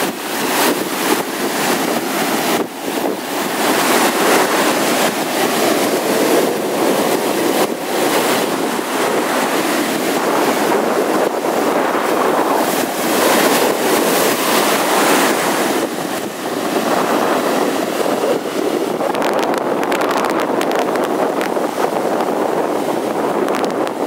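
Baltic Sea surf breaking and washing in foam over the sand, a steady rush of water with wind buffeting the microphone.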